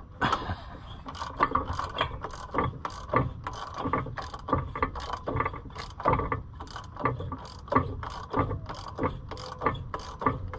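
A socket ratchet clicking in repeated short strokes as the air-cooled single-cylinder engine of a 1980 Harley-Davidson golf cart is turned over by hand. The engine is stiff and dry and has just been oiled to free it up.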